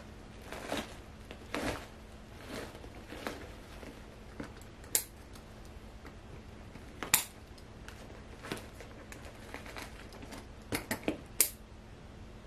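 Hands scraping and crumbling potting soil out of a tipped-over pot, then scissors cutting at the root ball, with several sharp metallic snips.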